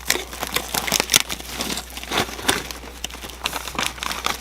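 Aluminum foil tape and the foil flexible ducting it seals crinkling and crackling in irregular sharp bursts as a piece of tape is pressed onto the duct joint by hand.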